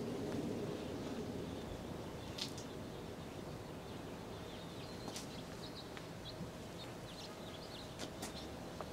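Outdoor ambience: a steady background hiss with faint, short bird chirps scattered through the middle and later part, and a few soft clicks.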